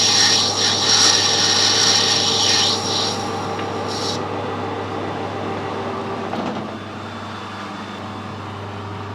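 Metal lathe cutting a brass part, a loud rasping hiss of the tool in the metal that cuts off suddenly about four seconds in. The lathe keeps running with a steady hum after the cut stops.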